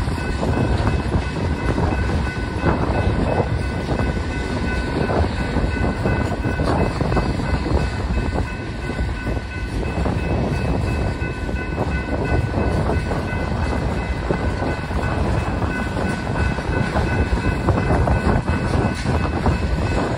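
Freight train of tank cars, boxcars and flatcars rolling past, a steady rumble and clatter of steel wheels on the rails. Some steady high ringing tones sound over it throughout.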